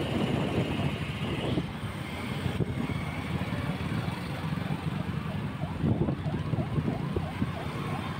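Road and engine noise of riding a two-wheeler in flowing city traffic, with wind rumbling on the microphone.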